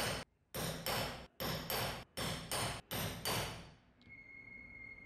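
A stitching chisel is hammered through leather to punch stitch holes. About nine even, sharp strikes come at roughly two to three a second, each with a short ring, and they stop about three and a half seconds in.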